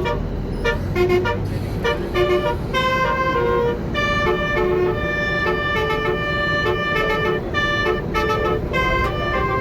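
Basuri musical air horn with roof-mounted trumpets playing a telolet melody, heard from inside the bus: a run of quick short notes, then longer held notes from about four seconds in, over the low rumble of the bus.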